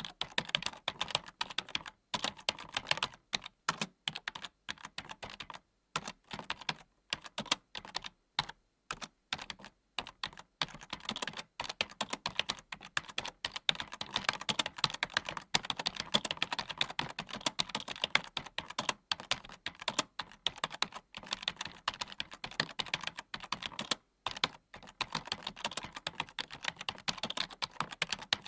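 Rapid, irregular key clicks of typing on a keyboard, with brief pauses every few seconds.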